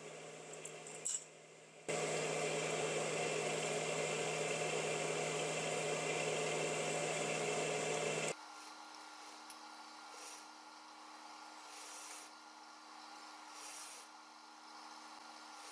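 Industrial straight-stitch sewing machine running a seam for about six seconds, starting about two seconds in and stopping abruptly. Afterwards a quieter steady motor hum remains, with a few short soft rustles of the knit fabric being handled.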